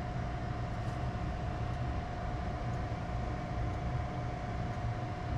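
Steady low hum with a faint constant whine and no distinct events: machine or room hum in a workshop.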